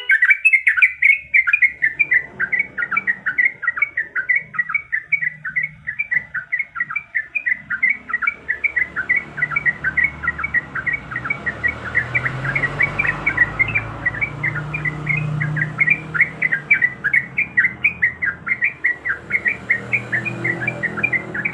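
Yellow-vented bulbul (trucukan) chattering: a continuous run of quick, sharp chirps, about four to five a second, with no pause.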